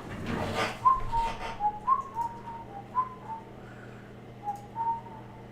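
A person whistling a short tune of quick notes that step down in pitch, the phrase repeated several times, after a brief rustle in the first second.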